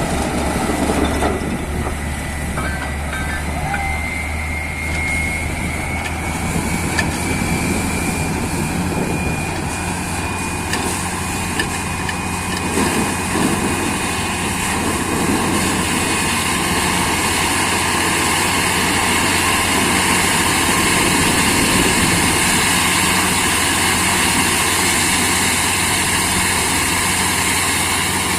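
Borewell drilling rig and its air compressor running steadily, with a thin whine in the first few seconds and a broad hiss that grows louder in the second half.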